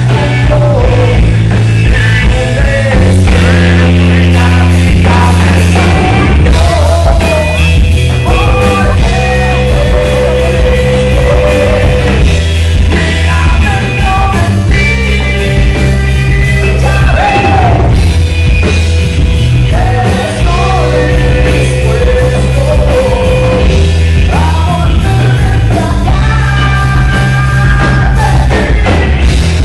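Live rock band playing loud through a PA: a male singer singing into a microphone over electric guitar, with heavy sustained low notes under the whole mix.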